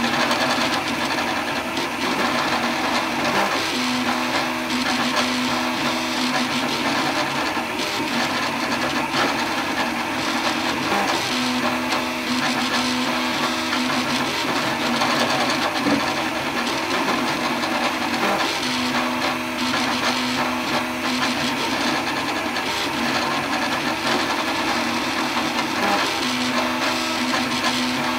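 Desktop 3D printer printing: its stepper motors whine in a low tone that comes and goes every few seconds as the print head and bed move, over a steady fan hiss.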